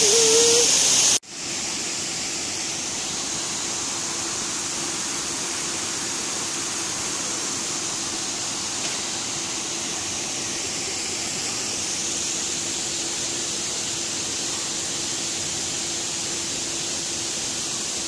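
Steady rushing noise of running water. It is louder and hissier for the first second, then drops abruptly to an even, quieter rush with a faint low hum underneath.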